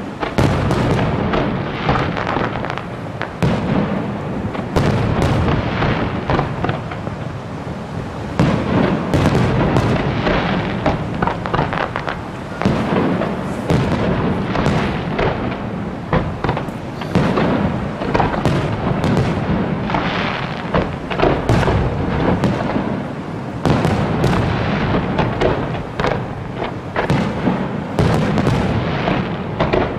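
Fireworks display: a dense barrage of aerial shells bursting one after another with no let-up, booms overlapping with crackle.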